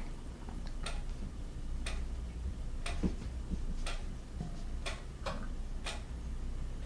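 A clock ticking about once a second, over a low steady hum.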